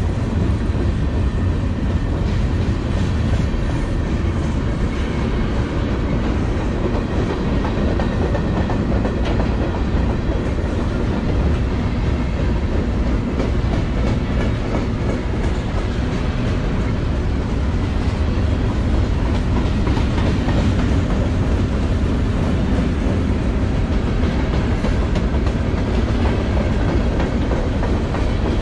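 Freight train cars rolling past steadily, the wheels clicking over the rail joints under a continuous low rumble.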